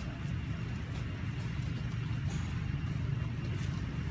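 A steady low rumble with a faint hiss above it and no distinct event.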